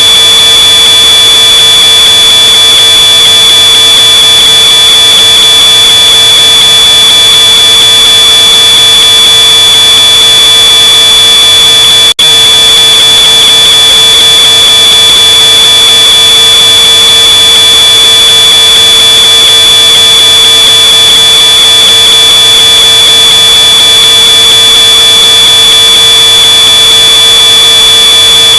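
Smoke alarm's piezo sounder giving one continuous high-pitched tone, boosted to full scale and heavily distorted. About twelve seconds in it cuts out for an instant, then carries on unchanged.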